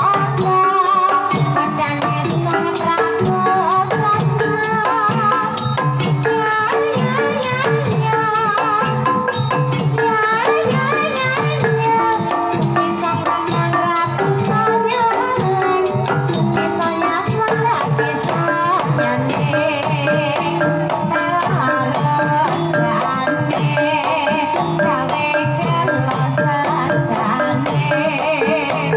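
Javanese gamelan playing a Banyumasan tayub piece: kendang hand drum beats and bronze kettle gongs struck with padded mallets keep a steady rhythm, while a sinden, the female singer, sings a wavering melody over it.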